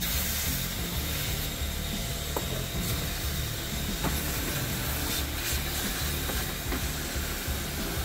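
Vacuum cleaner running with a steady hiss and low hum while a plastic blower wheel and dashboard parts are handled, giving a few light clicks and rubbing.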